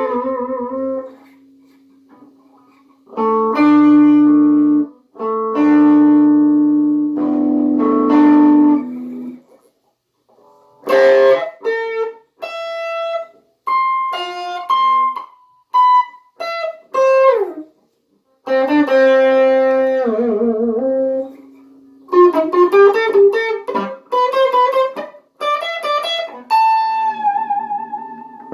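Solo guitar playing a lead solo: held chords, then runs of single notes with downward slides and wavering vibrato on long notes, in short phrases broken by pauses.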